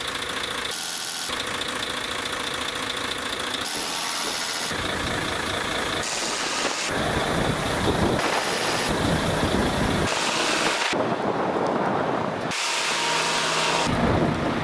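Car engine and road noise, broken by several abrupt cuts that change its character.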